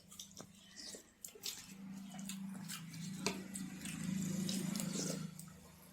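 Eating sounds: wet chewing, lip smacks and small clicks from people eating puri and chole. A low, buzzing hum runs through the middle few seconds and is the loudest part.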